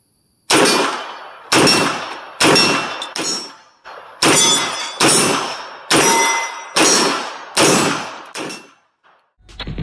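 About ten 9mm shots from a Foxtrot Mike FM9 pistol-caliber carbine, fired at a steady pace of roughly one a second, each followed by the ringing clang of a hit steel plate target.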